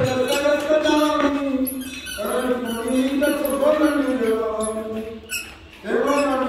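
A voice chanting devotional verses in long sung phrases, each note held and slowly rising and falling, with short breaks about two seconds and five and a half seconds in.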